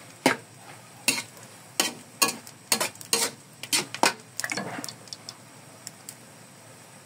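Metal spatula scraping and knocking against an aluminium wok while stir-frying noodles with cabbage: about a dozen quick, uneven strokes, which stop about five seconds in, leaving a few faint ticks.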